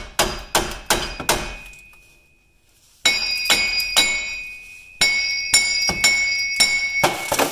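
Hammer blows on steel, driving a stuck front hub bearing out of a 2000 GMC Yukon. There are about a dozen strikes in three quick runs, with a pause near two seconds in. The struck metal rings on with a clear high tone after each group.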